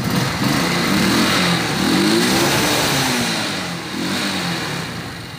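50cc moped engine being revved on the throttle several times, its pitch rising and falling between revs. It runs cleanly without misfiring on its substituted Honda Biz 125 CDI ignition.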